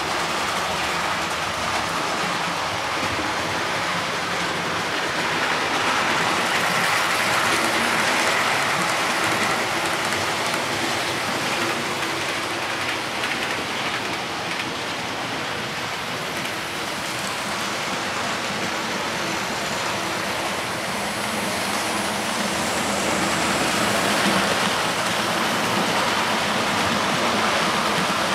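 00-gauge model trains running on a layout: a steady, even rolling noise of the wheels on the track, growing louder twice as trains pass close by.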